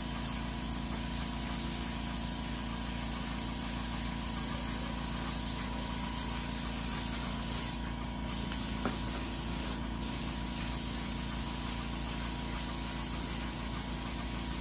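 Steady hiss of compressed air and paint spraying from a gravity-feed spray gun, over the steady hum of a running air compressor. The hiss breaks off briefly about halfway through and again two seconds later as the trigger is let go.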